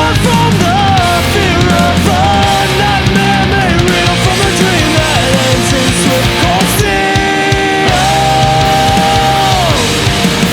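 Fast melodic punk rock in an instrumental passage: distorted electric guitars, bass and drums, with a lead melody that slides between notes and holds some long tones.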